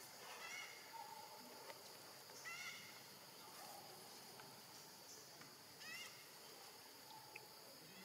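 Faint, steady high insect drone with three brief, high chirping animal calls spread through it.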